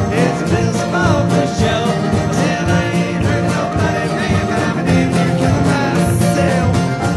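Live bluegrass band playing an instrumental passage: acoustic guitars and upright bass keep a brisk, steady rhythm.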